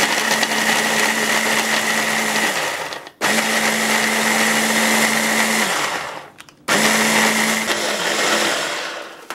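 Hand blender with a chopper-bowl attachment grinding shortbread cookies and chocolate into crumbs, run in three bursts of about three seconds each with brief stops between. The motor's pitch drops near the end of each burst.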